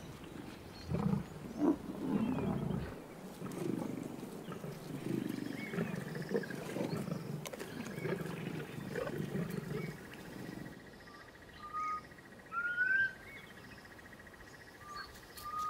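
African lions growling over a freshly killed buffalo calf, in rough, irregular calls for about the first ten seconds. After that, a bird gives a few short rising whistles.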